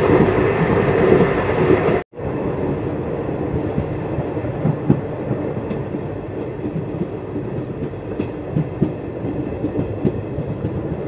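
Passenger train running along the track, heard from on board: a steady rumble with occasional wheel knocks and clacks. The sound cuts out for a moment about two seconds in, then carries on a little quieter.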